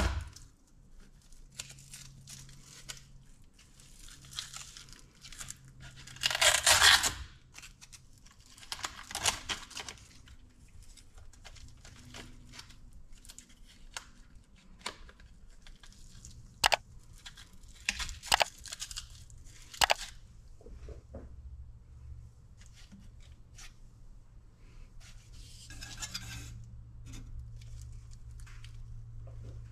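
Hook-and-loop (Velcro) battery straps ripped open and pressed back down in several rasping bursts, the loudest about six seconds in. Three sharp clicks come near the middle.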